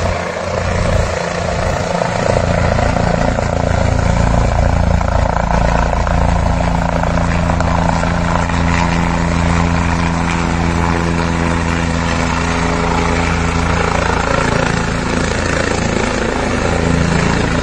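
Helicopter's rotor and turbine engine running as it comes in low to land, a steady drone with several steady low tones.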